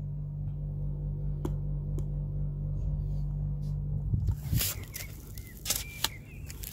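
Handling noise from a phone camera being moved: a steady low hum with a few clicks, then about four seconds in the hum stops and loud rubbing and scraping against the microphone take over, with a few short high chirps among them.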